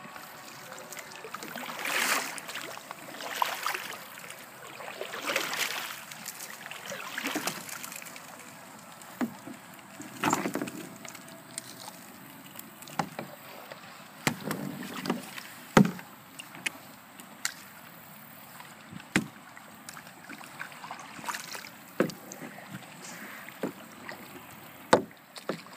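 Wire-mesh crab trap hauled out of the water onto a plastic kayak, with several swells of splashing and draining water in the first few seconds. Then scattered sharp knocks and clanks as the trap and paddle bump against the kayak hull.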